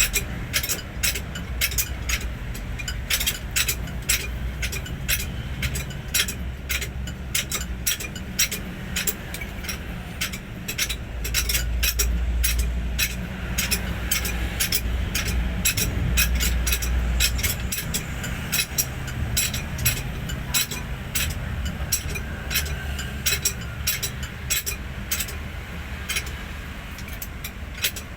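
Steel hand tools clinking and tapping against metal on a Hino 500 truck engine, in quick irregular light clicks, over a low steady rumble that swells for a few seconds midway.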